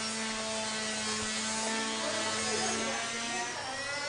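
Small electric motor running with a steady buzz, its pitch drifting slightly; the lowest tone drops out near the end.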